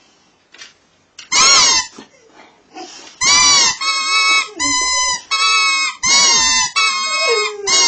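Boxer dog howling at a held-up toy it wants: a run of high, wavering cries one after another, starting about a second in. The last cry slides down into a lower, drawn-out note near the end.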